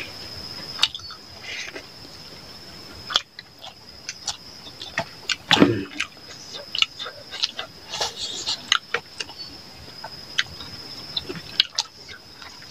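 Close-miked mukbang eating sounds: two people chewing and smacking their lips while their fingers mash rice and chicken curry, making irregular short wet clicks. The loudest smack comes about five and a half seconds in, over a thin steady high whine.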